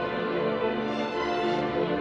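Orchestral background music with strings.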